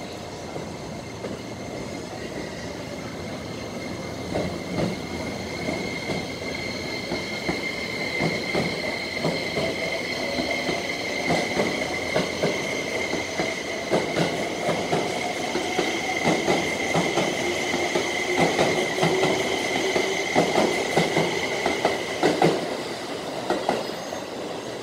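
E261-series Saphir Odoriko electric train running slowly past at close range. Its wheels clack over rail joints, more often and louder as it gathers speed, over a steady high wheel squeal. A lower motor tone climbs in pitch through the middle of the passage.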